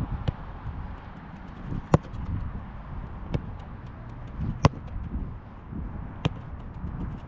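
Football being passed back and forth on artificial turf: five sharp kicks and ball thuds about every one and a half seconds, over a low rumble on the head-mounted camera's microphone.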